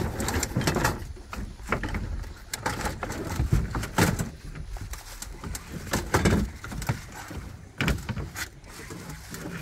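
Irregular knocks and bumps on a small fishing boat, over a steady low rumble.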